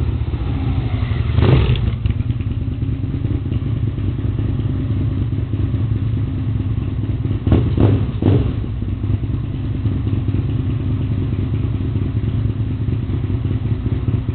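Aprilia RSV 1000 Mille R's 60-degree V-twin idling, echoing in an underground car park. Short sharp throttle blips come once about a second and a half in and twice in quick succession near the middle.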